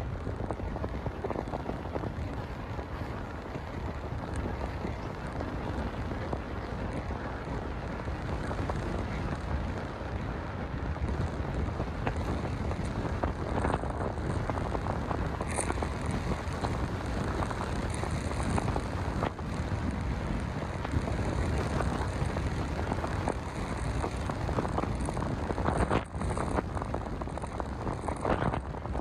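Wind buffeting the microphone over the steady rumble of a moving vehicle, with scattered small knocks.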